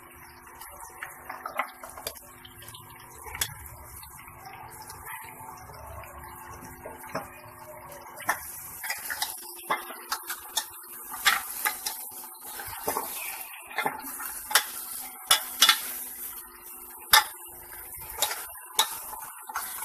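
A steel ladle knocks and scrapes against the inside of a metal pressure cooker as beef trotters are turned in hot oil with onions and garlic, over a faint sizzle. The knocks are sparse at first and come thick and fast in the second half.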